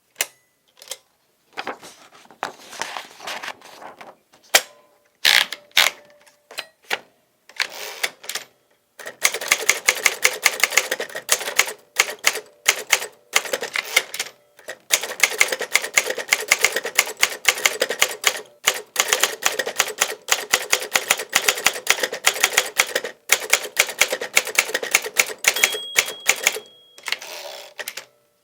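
1956 Underwood Quiet Tab Deluxe manual typewriter being typed on. At first there are scattered keystrokes with pauses; from about nine seconds in comes fast, continuous typing, a rapid train of clacks broken by short pauses. A short ringing tone sounds near the end.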